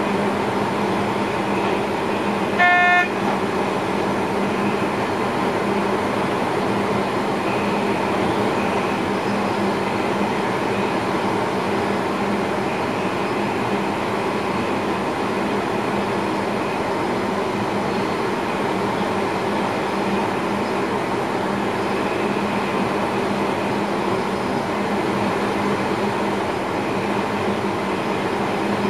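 Steady running noise of a train heard inside the driver's cab, with a constant low hum. About three seconds in, a short horn toot sounds once.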